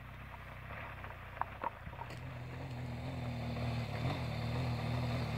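Adventure motorcycle engine climbing a steep gravel mountain pass, its steady engine note growing louder as the bike approaches. Two short sharp clicks sound about a second and a half in.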